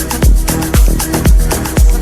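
Dance music with a steady kick drum about twice a second and hi-hat strikes between the beats.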